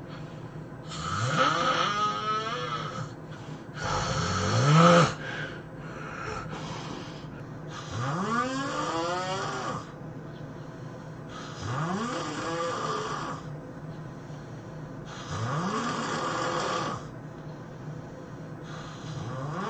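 A person snoring heavily in sleep: six loud snores come about every three to four seconds, each rising in pitch as it goes. The second snore, about four seconds in, is the loudest.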